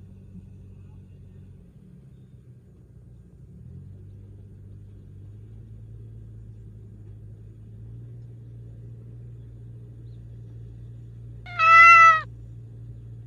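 A calico house cat meows once near the end, a single loud call of about three quarters of a second that dips slightly in pitch as it ends. A low steady hum runs underneath.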